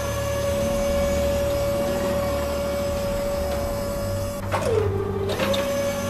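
Steady electric motor whine, a crane-winch sound effect, over a low hum; about four and a half seconds in the pitch drops briefly and then comes back.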